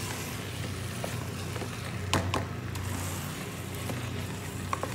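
Wooden spoon stirring and scraping rice in a non-stick pot, with two sharp knocks of the spoon, one about two seconds in and one near the end, over a steady low hum.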